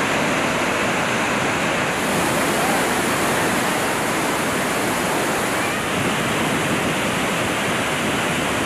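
Steady rush of the Iguazú Falls in flood, a dense wall of falling and churning water with no breaks. The river is running at about ten times its usual flow after a week of heavy rain.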